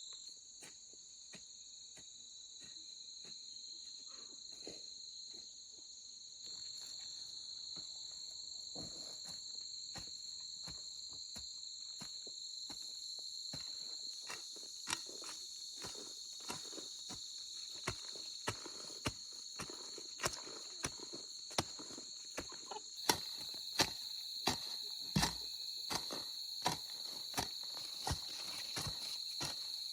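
A steady, high insect chorus drones throughout. Over it come short, sharp knocks or steps, sparse at first, then louder and about one or two a second in the second half.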